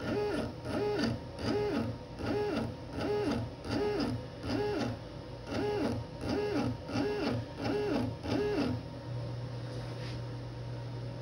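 X-Carve CNC stepper motors jogging the spindle in short 0.1-inch moves. About a dozen whines come roughly 0.7 s apart, each rising in pitch, holding, then falling as the axis speeds up and stops. They stop near 9 s, leaving a steady low hum.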